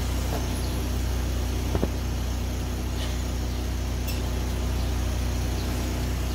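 Engine-driven Hobart Champion Elite welder-generator running steadily at idle, powering the welder, with two short metallic clicks a little under two seconds in.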